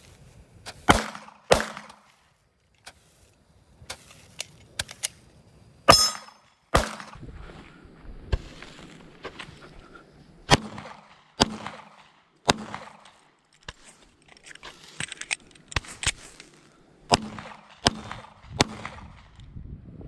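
Handgun shots, about a dozen sharp cracks fired singly and in quick pairs, mixed with the lighter pops and hiss of Roman candles firing.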